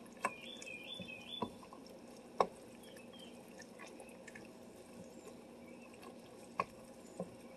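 Wooden spoon stirring a thick chicken-and-rice mixture in an enamelled Dutch oven, with a few light knocks of the spoon against the pot.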